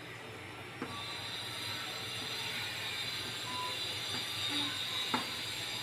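Chalk scraping on a blackboard in short strokes, with a couple of sharp taps as the chalk meets the board.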